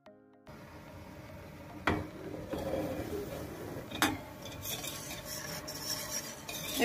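Wire whisk beating a thin milk, starch, sugar and flour batter in a metal pot, its wires scraping round the pot with two sharp clinks against the side about 2 and 4 seconds in, getting faster and brighter near the end. The last of some background music fades out at the very start.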